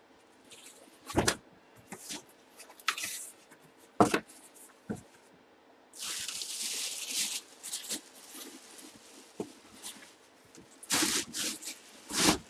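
Plastic wrapping crinkling and rustling as it is handled, with a few sharp knocks; a longer stretch of crinkling about six seconds in and another near the end.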